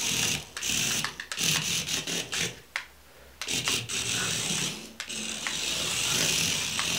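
Tiny electric motor and gear train of a 1:60 micro RC car whirring in bursts as the throttle is pressed and released, about five bursts with short gaps, the last one held longer from about five seconds in.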